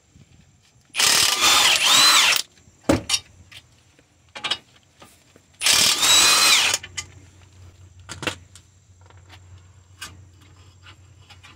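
Milwaukee M18 cordless impact gun run in two short bursts, the first about a second and a half long and the second about a second, loosening the 17 mm brake caliper bolts. Scattered clicks and knocks of tools and parts come between and after.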